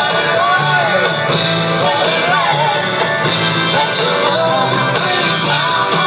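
Rock song playing: a singing voice over a steady bass line.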